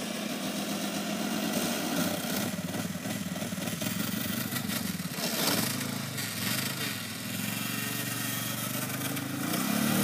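Quad ATV engine running and revving as the machine rides across grass and mud, its pitch rising and falling with the throttle. It grows louder near the end.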